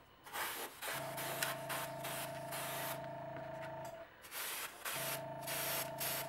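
An airbrush spraying paint in short hissing bursts, over the steady hum of its small compressor. The hum cuts out briefly twice.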